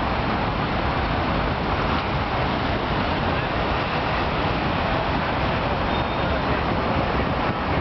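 Steady city traffic noise from cars and delivery trucks driving around a busy roundabout, an even wash of engine and tyre sound.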